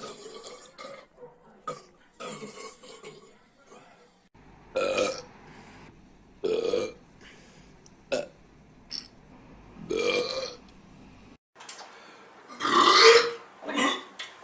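A run of human burps from different people, about eight separate belches one to two seconds apart, each under a second long, the loudest a long one near the end.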